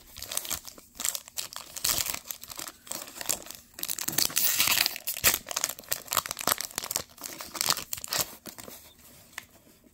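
Shiny foil wrapper of a Topps Chrome baseball card pack crinkling as it is handled and torn open. The rustling and tearing are loudest in the middle and die down near the end.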